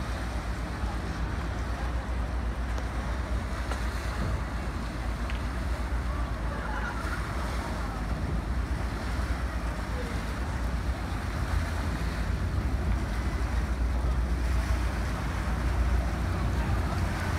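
First Fleet-class Sydney ferry's diesel engines and propellers churning the water as it comes in to berth: a steady low rumble that grows slightly louder near the end, mixed with wind on the microphone.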